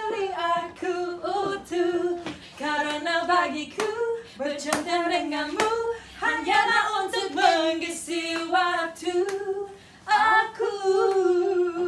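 Two women singing a dangdut song together in Indonesian without accompaniment, with sharp hand claps keeping time.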